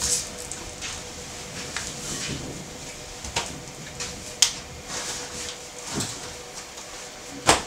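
Rustling and handling sounds of a person moving about on a wooden bunk bed, with several sharp clicks and knocks, the loudest near the end, over a faint steady hum.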